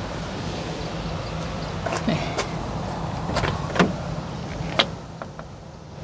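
Toyota HiAce Commuter van's driver door being opened and handled: a handful of sharp clicks and knocks from the latch and panel, over a steady low hum.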